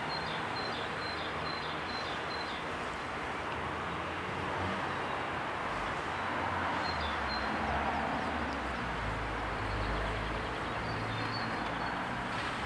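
Steady outdoor background noise with a few patches of short high chirps, and a low engine rumble that builds from about halfway through.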